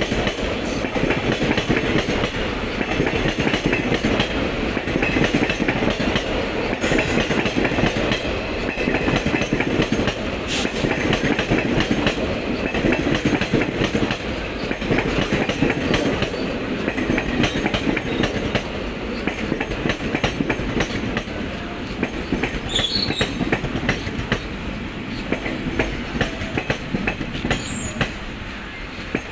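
Indian Railways express passenger coaches rolling past close by, their wheels clattering over rail joints in a continuous clickety-clack over a rumble. The clatter grows quieter over the last few seconds as the arriving train slows.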